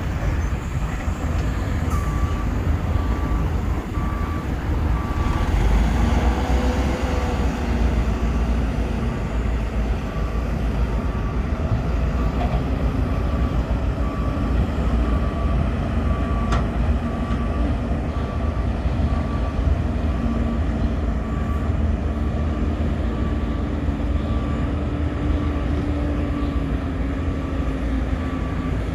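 Heavy diesel engines of hydraulic excavators and dump trucks running with a steady low rumble, one engine note rising and holding under load about six seconds in. A backup alarm beeps about once a second from about two seconds in.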